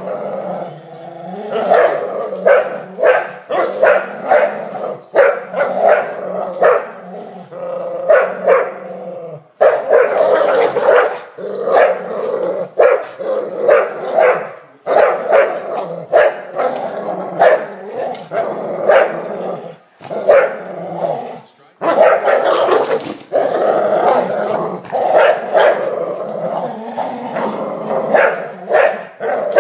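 Two Entlebucher Mountain Dogs growling and barking in a game of tug: play growling, not aggression. Sharp barks come in quick runs between longer stretches of continuous growling.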